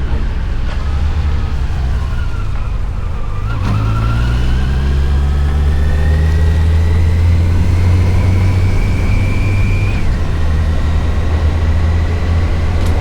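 Yamaha FJR1300's inline-four engine and wind rumble while riding: the engine note sinks for the first few seconds, then climbs steadily as the bike accelerates, drops suddenly at a gear change about ten seconds in and runs on steady.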